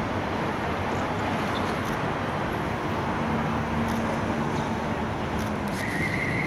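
Steady city road traffic, a continuous rush of passing cars with a low engine hum. A thin high tone, like a brake squeal, comes in near the end.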